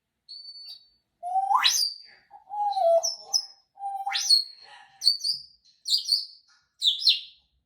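African grey parrot whistling and chirping: two whistles that start on a low note and sweep sharply up to a high one, a low held note between them, then a quick run of about four short high chirps near the end.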